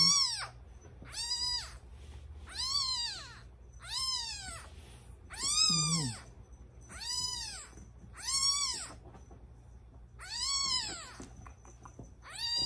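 Ten-day-old kitten crying: a series of about nine thin, high mews, one every second and a half or so, each rising then falling in pitch.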